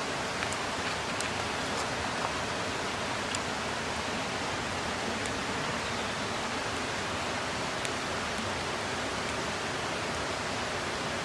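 Steady rushing of a mountain stream, with a few faint, sharp ticks over it.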